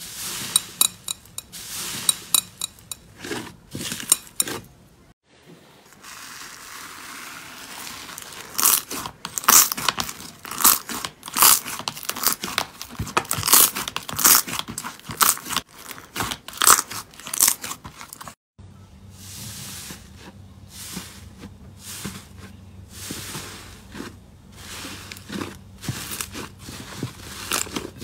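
Hands squeezing, poking and stretching slime, giving dense runs of crisp crackles and sharp pops. The sound breaks off briefly twice as one slime gives way to the next.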